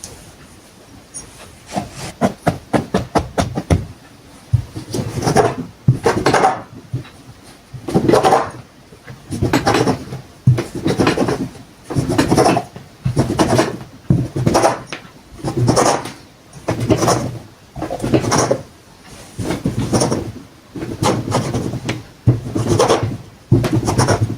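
Hand saw cutting through wood in steady rasping strokes, about one a second, after a brief run of quick clicks at the start.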